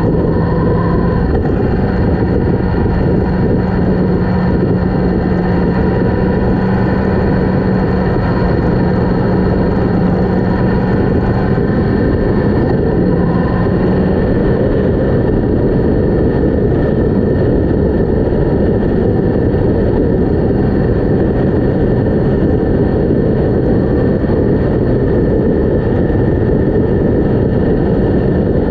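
Yamaha MT-10 motorcycle's crossplane inline-four engine running at a steady cruising pace under loud wind rush on the camera microphone. The engine note steps up slightly about a second in and sinks into the wind noise about half-way through.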